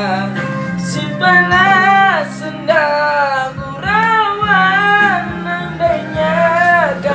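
A man singing a Malay love-song duet over a backing track that carries guitar and a female voice, his melody gliding and holding long notes.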